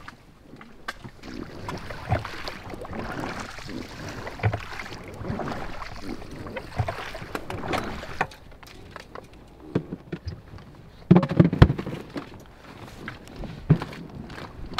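Irregular knocks, thumps and rustling of fishing rods and gear being handled in an inflatable raft pulled up at the bank, with a loud cluster of thumps about eleven seconds in.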